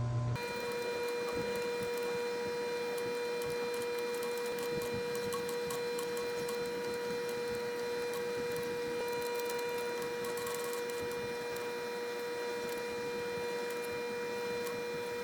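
A small electric machine running steadily with a constant whine and light irregular ticking.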